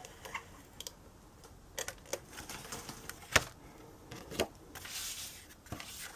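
Scattered light taps and clicks of cardstock and craft tools being handled on a work surface, with a brief papery rustle near the end; the sharpest tap comes a little past the middle.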